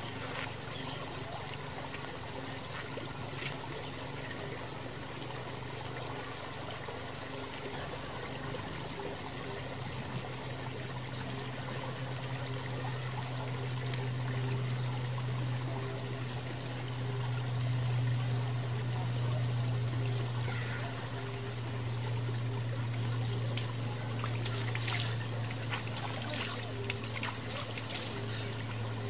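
Water trickling and flowing steadily in a small stone-lined stream channel, over a low steady hum that grows louder about a third of the way in. Near the end, several splashes as water is scooped up by hand and splashed onto a face.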